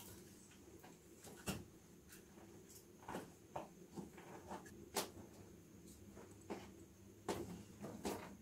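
Primus canister gas stove burning steadily under a titanium mug, a low even hum, with scattered sharp clicks and knocks spaced irregularly through it.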